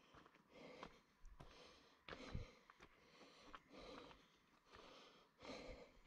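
Faint, regular breathing of the person walking with the camera, a soft breath about every second and a half, with light footsteps on the path between breaths.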